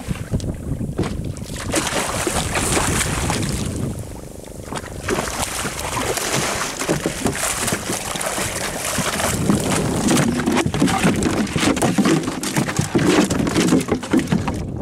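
A cobia splashing and thrashing at the side of a small wooden fishing boat as it is gaffed and hauled aboard, with irregular splashes and knocks. Wind on the microphone and water against the hull throughout.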